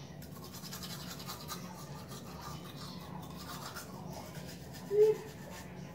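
Teeth being brushed with a manual toothbrush: a fast, steady scratching of bristles. About five seconds in, a brief tone, the loudest moment.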